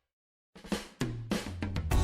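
Background music: about half a second of silence, then a new track starts with drum hits and quickly settles into a steady beat with drums and bass.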